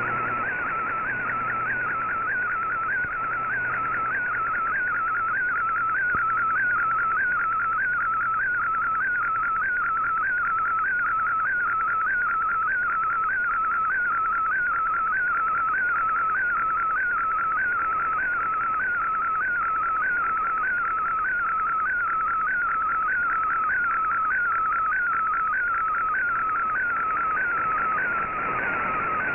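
Shortwave receiver audio of a digital picture transmission being decoded: a warbling data tone near 1.5 kHz that repeats its pattern about twice a second, line by line of the image, over band hiss.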